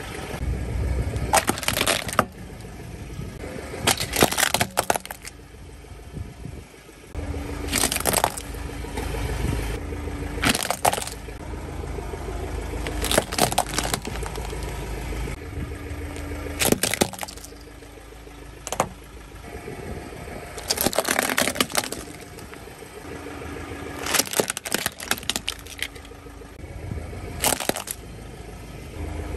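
Plastic toy vehicles being crushed under a slowly rolling car tyre on asphalt: clusters of sharp cracks and snaps of breaking plastic every few seconds, with a low rumble from the car between them.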